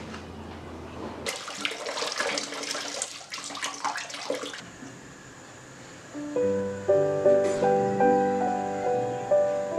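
Rice being washed by hand in water in a glass bowl: water swishing with the grains clicking against the glass for about three seconds. About six seconds in, gentle instrumental music with picked notes comes in.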